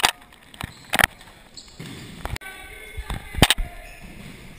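A futsal ball thudding off feet and the hard indoor court, a few sharp hits with the loudest pair about three and a half seconds in, echoing in a large sports hall, with players' voices calling in the background.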